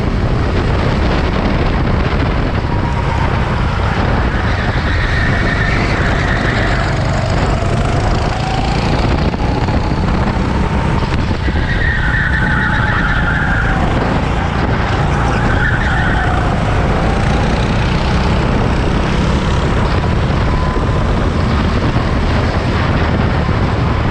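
Race cars running on a circuit, engines revving up and down over a steady low rumble. Three short higher-pitched squeals, about a quarter, a half and two-thirds of the way through, fit tyres squealing through corners.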